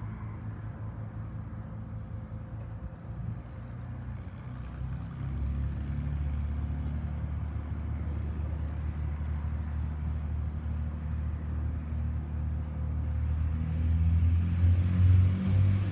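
Vintage propeller plane's piston engine running while the aircraft stands on the ground, opening up about five seconds in and getting louder again near the end, as in a pre-takeoff run-up.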